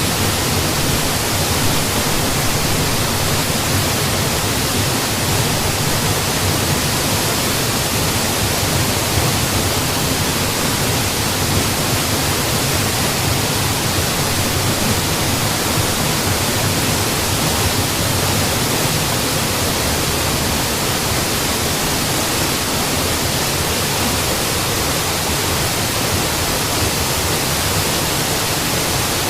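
Mountain waterfall: a loud, steady rush of falling water that does not change.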